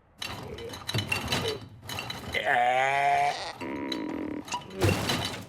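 Cartoon animal bleat: one wavering call lasting about a second, followed by a steadier lower call. Before it come scattered clicks and rustles, and a short noisy burst comes near the end.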